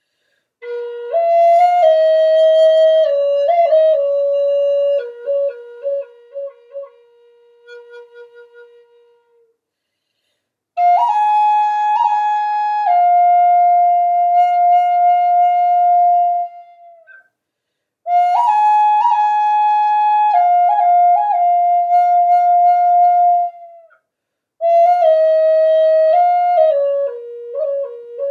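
Flute played solo in slow phrases: four long phrases of held notes with short ornamental turns, with brief pauses between them.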